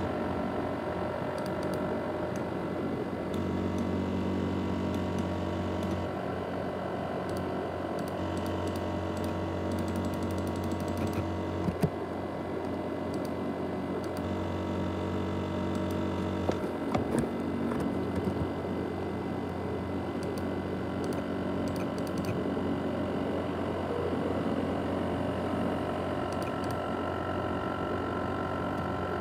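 ASUS X543UA laptop running with a steady whirring made of several steady tones, the noise its owner likens to a jet engine in a laptop that has broken down. A low hum cuts in and out every few seconds, with a couple of sharp clicks in between.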